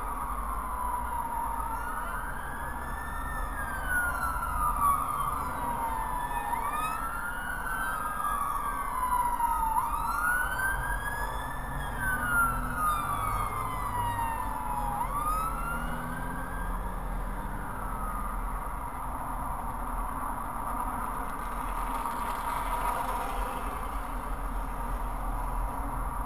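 Emergency vehicle siren wailing in slow rising and falling sweeps, two of them overlapping at times, fading out about two-thirds of the way through. A steady low rumble of the car runs underneath.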